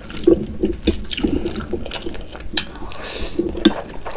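Close-miked wet chewing and lip smacking while eating spicy soupy noodles, with a short slurp a little after three seconds in.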